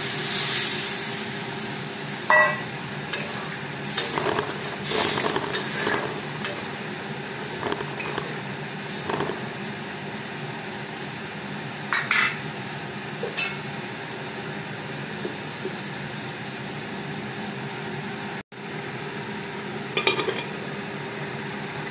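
A metal spatula clinking and scraping now and then against a metal kadai as a ridge gourd and potato curry is stirred after water has been added, over a steady hiss from the pan heating on the stove. Near the end a metal lid clanks onto the pan.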